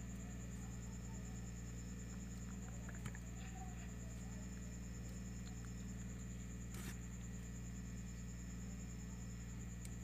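Quiet room tone: a steady low electrical hum with a thin high whine, broken by a faint click about three seconds in and a short knock about seven seconds in.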